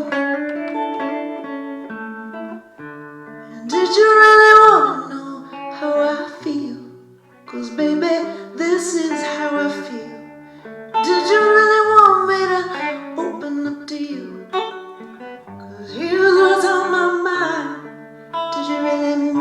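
A song with acoustic guitar and a woman singing long, held phrases a few seconds apart.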